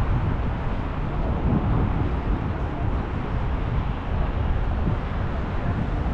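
Wind buffeting the microphone: an uneven low rumble with no distinct events.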